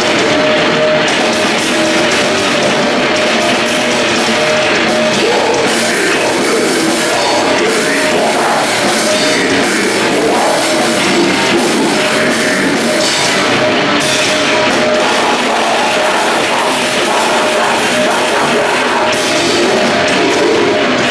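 A band playing grindcore, with a drum kit, loud and dense without a break.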